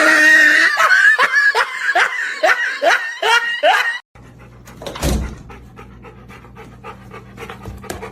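A dog giving a rapid run of about ten yips or whines, each bending in pitch, which cut off abruptly about four seconds in. A quieter stretch follows with a steady low hum and a single thump.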